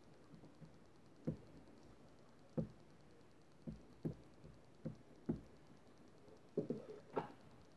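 Ink pad being dabbed onto a rubber stamp on a stamping tool's clear plastic door: a series of short knocks at uneven spacing, about eight in all, with a quick cluster near the end.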